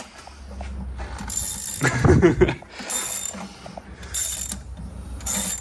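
Hand ratchet wrench clicking in repeated strokes, about one stroke a second, as a bolt is backed out.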